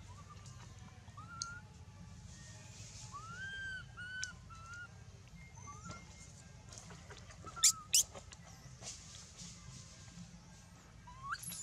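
Scattered short, thin animal calls, some rising and falling in a brief arch, over a low steady hum, with two loud sharp clicks about a third of a second apart just past the middle.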